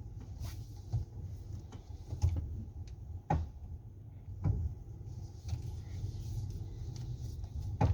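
Hyundai Santa Fe steering making several sharp clicks, a second or so apart, as the wheel is turned to full lock, over a steady low hum. The click comes from inside the steering box: the rack is skipping on its pinion because the misaligned wheels hit the body at full lock.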